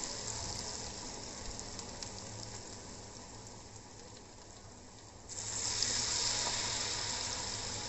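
Batter-coated spinach leaves deep-frying in hot oil: a steady sizzle that slowly dies down, then comes back louder all at once about five seconds in.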